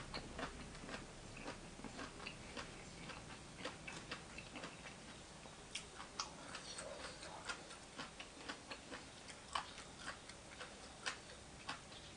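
Close-miked eating sounds: chewing, with irregular wet mouth clicks and smacks, a few a second, as spicy papaya salad with raw tuna is eaten.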